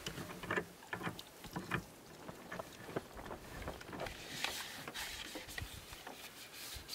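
Dishes being washed by hand: water trickling from a water jug's spigot over a bowl and utensils, with small clinks and scrapes.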